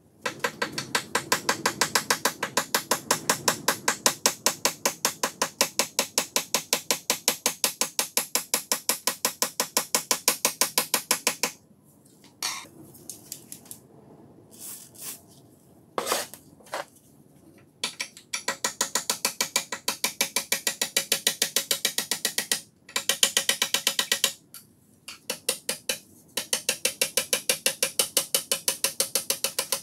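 Rapid, even metallic clicking, about six a second, from a tool worked against the rusted steel of an old vernier caliper clamped in a vise. It comes in runs of several seconds broken by pauses with a few single clicks.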